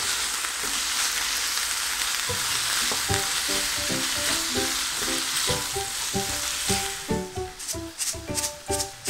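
Ground beef and cucumber slices sizzling in a frying pan as they are stir-fried with a spatula. The sizzle is steady and dies away about seven seconds in.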